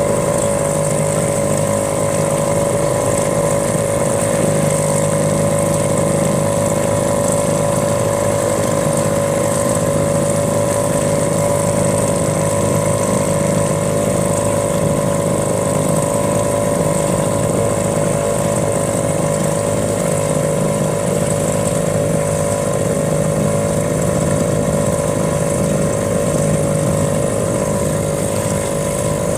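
A small boat's outboard motor running steadily at an unchanging speed, a constant mechanical drone with a steady whine on top.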